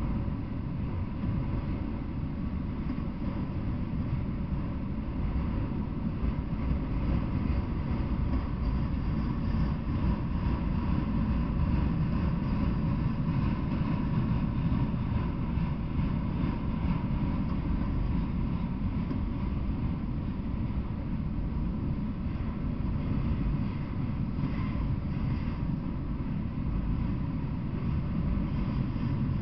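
Freight train of autorack cars rolling past at a steady pace: a continuous low rumble of wheels on rails.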